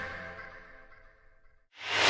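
Background music fading out to near silence, then a new section of music with a steady beat starting again just before the end.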